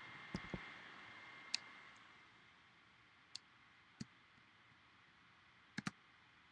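Near silence broken by a few faint, sharp clicks at irregular intervals, two of them close together near the end.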